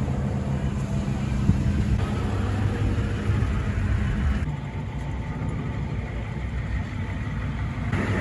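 Steady low rumble of a vehicle engine running, under outdoor background noise. The hiss above it drops away about four and a half seconds in.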